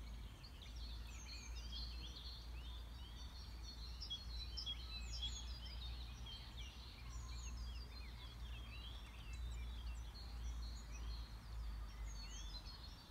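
Outdoor chorus of songbirds: many short chirps and trills overlapping without a break, over a steady low rumble.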